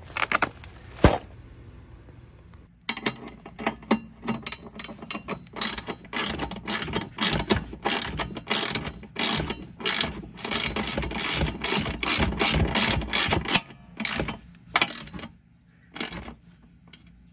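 Ratchet wrench clicking in quick strokes, tightening a bolt through a steel bumper mounting bracket into the RV frame. The clicking starts about three seconds in and stops near the end, after a couple of sharp knocks at the start.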